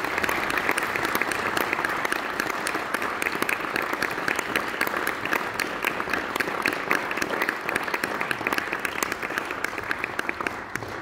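Audience applauding: dense, steady clapping that dies away right at the end.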